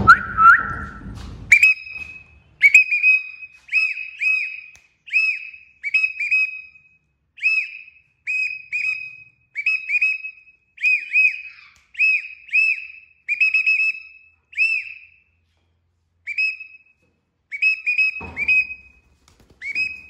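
A person whistling to call a young Alexandrine parakeet to fly to his hand. One rising whistle opens it, followed by many short, clear tweets in quick pairs and runs, with a couple of brief pauses near the end. A short rustle of handling comes near the end.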